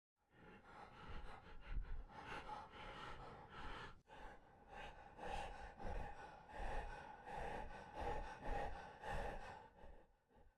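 Faint Tusken Raider creature-voice sound effect: quick, breathy gasps and breaths, about two a second, dying away near the end.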